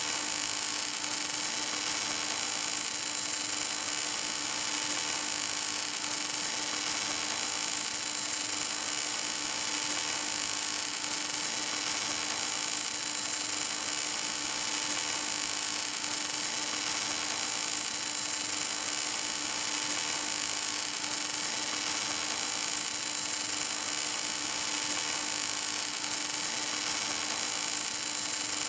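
Welding arc of an automatic pipe welding tractor's torch burning steadily along a pipe joint: a constant hiss with a steady hum beneath it.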